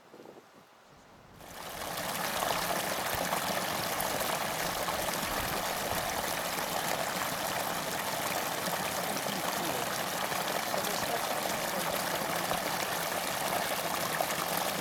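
Muddy water running along a narrow earthen ditch: a steady rushing that sets in about a second and a half in.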